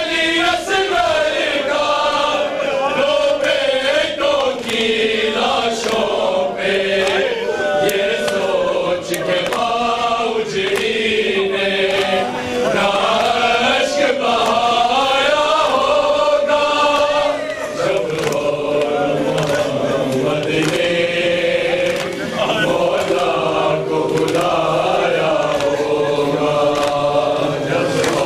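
A group of men chanting a nauha lament together in a rising and falling melody, with sharp slaps of matam chest-beating keeping time.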